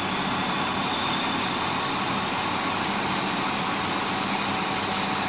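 XIAJIN forklift loader's diesel engine running steadily, with no change in pitch or level.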